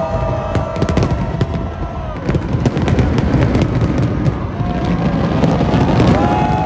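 Dense aerial fireworks barrage: continuous booming with many sharp bursts and crackling, one after another.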